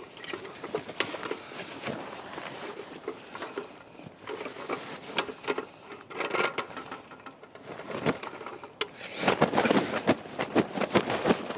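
Rustling, scraping and irregular knocks of a freshly landed common carp being handled on an unhooking mat. Near the end comes a louder, denser flurry as the angry fish thrashes.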